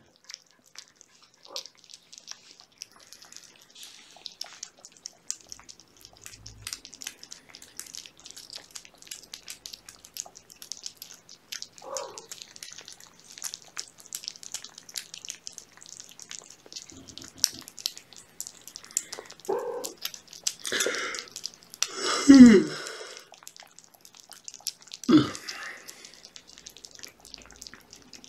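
Kittens and their mother cat eating wet cat food off a plate, a steady patter of small wet chewing and lapping clicks. Late on come a few short cat calls, the loudest sliding down in pitch.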